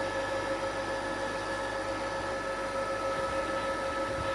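Portable induction cooker running at full power with a small pot of water coming to the boil: a steady hiss and rumble with a constant whine of several high tones.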